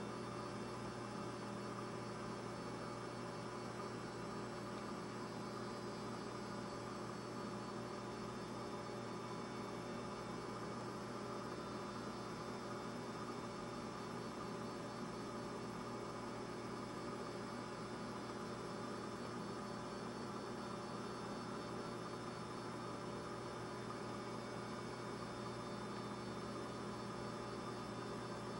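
Steady electrical mains hum with a buzzy stack of overtones, unchanging.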